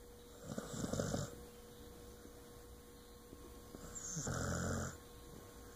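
A dog snoring: two snores about three seconds apart, each lasting about a second, the second a low, rattling buzz.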